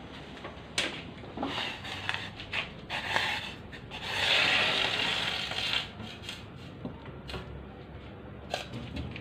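Rubbing and scraping of objects being handled, with scattered light clicks and knocks and a louder stretch of rubbing about four to six seconds in.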